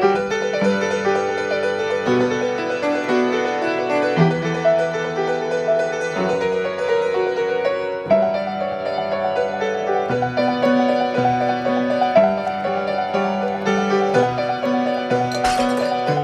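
Solo piano music in a classical style, with chords changing about every two seconds. A short hissing burst comes near the end.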